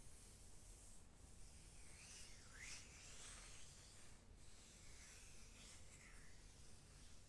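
Faint soft swishing of hands rubbing and stroking bare skin on the forearms and hands, close to a microphone, in several slow strokes.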